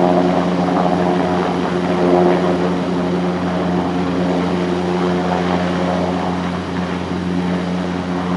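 Airbus EC225 Super Puma helicopter's twin turboshaft engines and rotors running loud and steady at takeoff, a steady low hum with a stack of higher tones over it.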